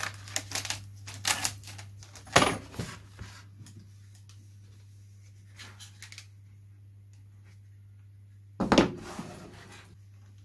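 Handling noise of plastic covering film on a balsa wing: small clicks and crinkling rustles, with two louder rustles about two and a half seconds in and near the end, over a steady low hum.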